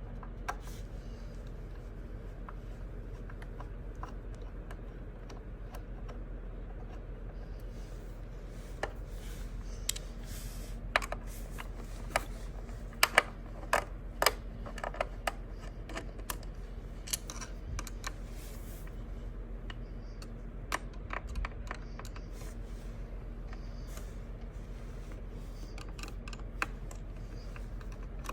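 Screwdriver and loose metal parts of a sewing machine clicking and tapping as it is taken apart, in irregular bursts that are busiest in the middle, over a steady low hum.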